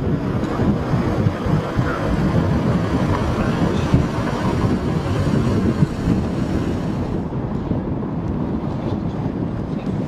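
Steady low rumbling noise of wind buffeting the microphone outdoors, with no clear individual sound events.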